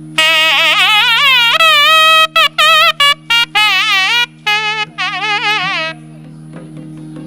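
Nadaswaram playing a loud, ornamented melodic phrase with wavering, gliding notes broken by short breaths, over a steady drone; the melody stops about six seconds in while the drone continues.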